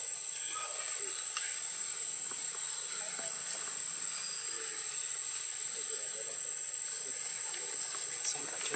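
Steady high-pitched insect chorus, a continuous shrill tone over a background hiss, with a few faint ticks.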